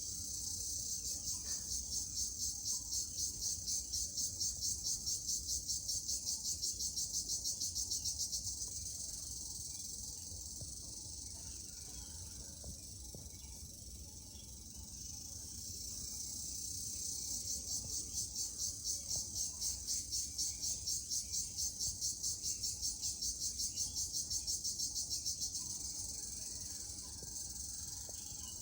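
Jhijhi poka, a singing insect, calling in a fast, even pulse of about four to five pulses a second, high-pitched. Two long trains swell in and fade out, one in the first third and one in the second half, with a faint low hum underneath.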